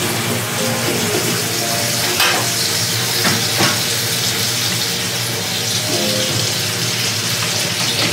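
Bacon and onion sizzling in chili oil in a frying pan over a gas burner, a steady frying hiss. A few sharp clicks come about two to four seconds in.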